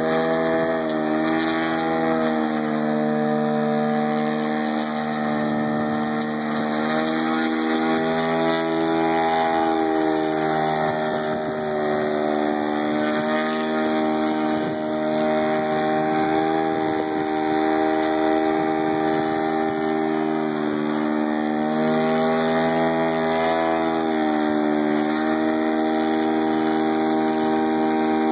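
Engine and propeller of a 42% scale Yak RC aerobatic plane, a 150cc 3W two-stroke petrol engine, running at high power to hold the plane in a nose-up hover with its tail dragging low. The engine note rises and falls several times as the throttle is worked.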